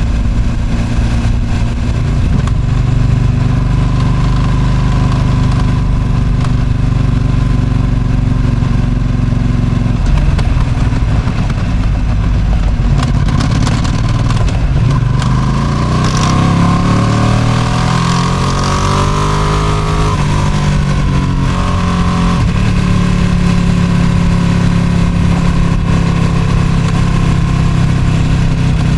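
Ducati Streetfighter V2's 955 cc V-twin running through its stock exhaust while riding. It holds steady at first, then rises in pitch under acceleration and changes gear about two-thirds of the way through before settling steady again, with wind noise throughout.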